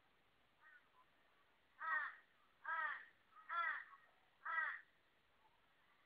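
Torresian crow calling four times in a row, about a second apart: short, harsh caws, each falling slightly in pitch.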